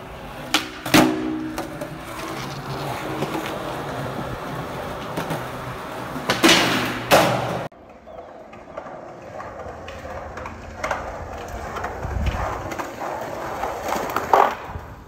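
Skateboard tricks on concrete: sharp clacks of the board's tail pop and landing about a second in, the wheels rolling on pavement, and two more hard board impacts around six and seven seconds in before the sound cuts off suddenly. After the cut come more rolling and a loud clack near the end.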